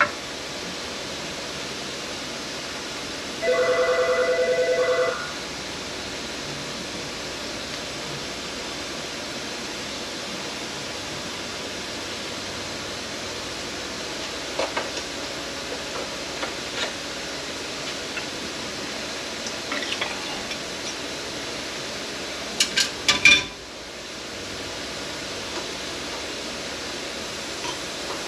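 A telephone rings once with a warbling electronic ring of a little under two seconds, over a steady background hiss. A few faint clicks follow, then a brief cluster of sharp knocks near the end.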